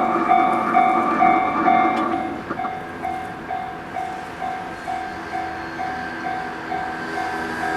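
Japanese railway level-crossing alarm ringing, a repeating electronic clang about two and a half strokes a second. A passing freight train runs under it and drops away about two seconds in, leaving the bell over fainter train noise.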